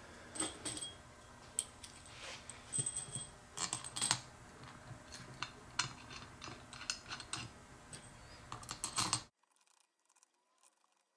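Small metal parts and tools clicking and clinking irregularly as screws, hex keys and fittings are picked up and handled during assembly of a pneumatic collet closer. The sound cuts off suddenly about nine seconds in.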